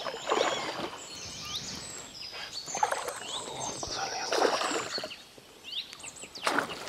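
Water splashing in several short bursts as a hooked pike thrashes at the surface, while small birds sing in quick high chirps.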